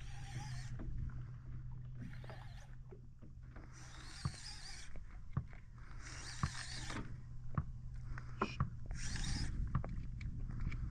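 Shallow water splashing and lapping in short bursts about every two to three seconds, with scattered small clicks and a low steady hum underneath.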